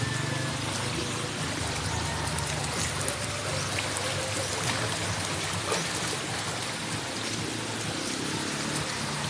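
Shallow floodwater running across a concrete yard: a steady, even rush of flowing water.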